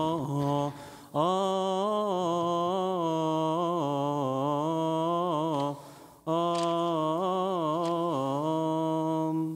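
A single man's voice singing a long, slow melismatic Coptic liturgical chant without words being clearly articulated, the pitch wavering and ornamented on held vowels. There are two short breaths, about a second in and again about six seconds in.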